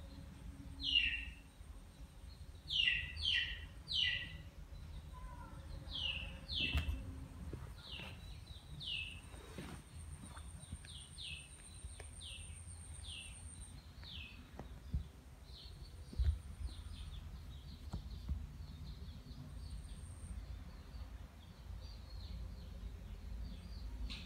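A bird calling: a series of short, falling whistled notes, a few loud ones in the first seven seconds, then fainter notes repeating roughly once or twice a second. A faint, thin, high steady tone sits under it for several seconds in the middle.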